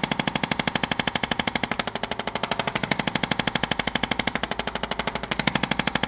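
Percussion massage gun running, its head hammering in a rapid, steady pulse while it is applied to the patient.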